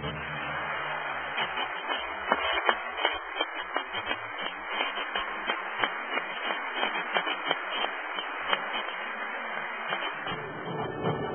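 Audience applauding a concert performance, a dense patter of clapping with single sharp claps standing out.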